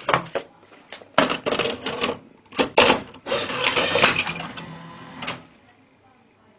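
Sony VO-7630 low-band U-matic video cassette recorder's mechanism clicking and clunking as it is operated. A run of sharp clicks is followed about halfway through by a longer mechanical clatter that dies away near the end.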